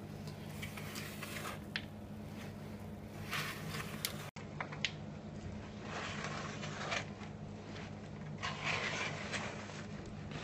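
Spoon folding crushed walnuts through thick cake batter in a plastic mixing bowl: soft, irregular scrapes and squelches, a little louder about three seconds in and again near the end, over a steady low hum.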